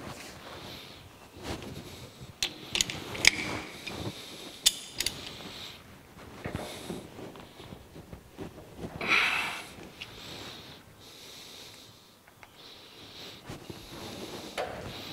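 Four-jaw lathe chuck being turned over by hand and its jaws adjusted with the chuck key while a workpiece is dialed in: irregular mechanical clicks and rattles from the chuck and spindle, with a run of sharp clicks a few seconds in.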